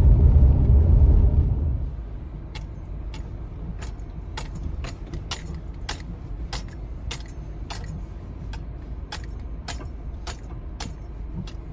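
Inside the cabin of a 2019 Subaru Forester: loud tyre and road rumble on a gravel road, dropping away after about two seconds. Then the car moves slowly over a bumpy dirt trail with a quieter rumble and sharp, light clicking rattles from the cabin, about two a second, unevenly spaced.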